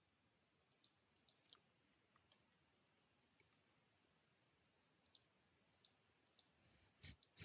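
Faint computer mouse clicks, scattered irregularly over near silence, with a slightly louder click near the end.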